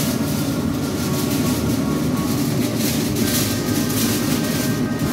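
A steady low drone with no breaks, and aluminium foil rustling as a sheet of it is handled over the pot in the second half.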